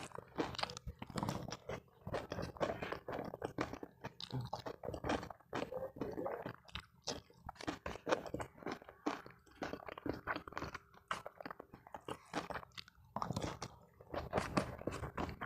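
A person chewing and crunching food close to clip-on microphones: a dense, irregular run of crackly clicks and crunches.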